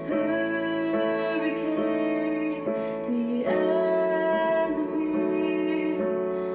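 Slow, gentle music with sustained chords that change every second or two: an instrumental passage of a self-written song.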